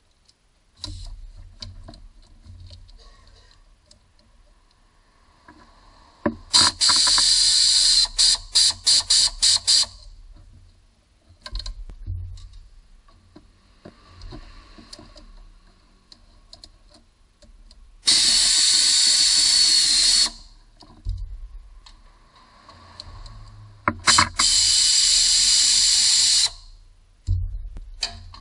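Pneumatic wrench running in three bursts of a few seconds each, undoing the starter motor's mounting bolts. The first burst stutters as the trigger is pulsed, and the other two run steadily. Light clinks of tools are heard between the bursts.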